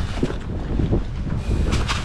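Wind buffeting the camera microphone as a steady low rumble, with a few sharp clicks and rattles near the end.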